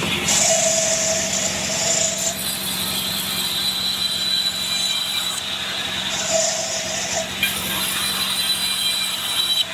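Band sawmill cutting a Bayur log: a steady motor hum under a high whine from the blade, with two louder hissing stretches, one near the start and one about six seconds in.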